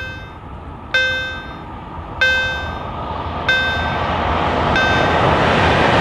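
Level crossing warning bell dinging about once every 1.3 s, four strikes, each ringing out and fading. Under it the rumble of an approaching electric locomotive and its coaches grows steadily louder until the train's passing noise almost covers the last ding.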